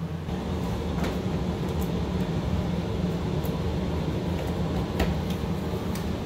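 Steady low mechanical hum, with a few faint clicks from hands working a plastic drain fitting under the sink.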